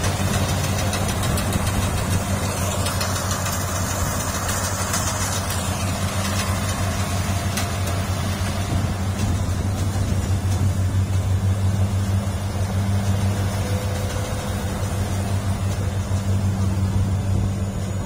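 Kubota DC-60 rice combine harvester's diesel engine running with a steady low note at close range.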